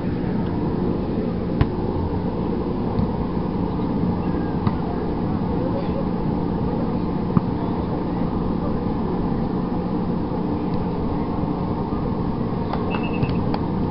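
A motor running at a steady pitch, with a steady hum throughout and a murmur of indistinct voices beneath it.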